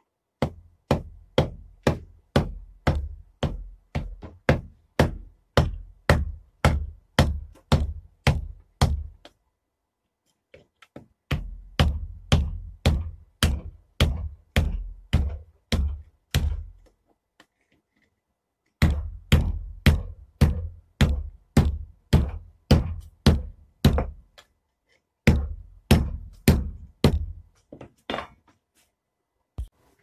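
Hand hammer striking red-hot steel on an anvil: steady blows about two to three a second, in four runs with pauses of a second or two between them, forging the handle of a Japanese friction folding knife.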